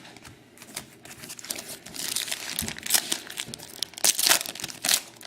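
Foil trading-card pack wrapper crinkling and tearing as it is handled and ripped open, in irregular crackly rustles that grow busier after about two seconds.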